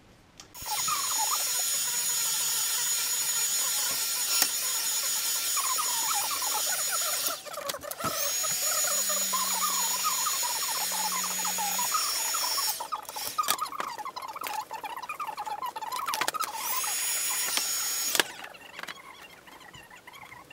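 Heat gun blowing hot air onto a sheet of PVC foam board to soften it for bending: a steady rushing hiss with a thin high fan whine. It is switched off and on again twice, and the whine rises as the fan spins back up. Quieter handling clicks fill the pauses and the last couple of seconds.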